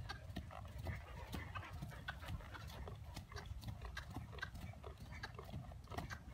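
Hoofbeats of a grey horse trotting on a soft dirt arena: a steady run of short, dull thuds.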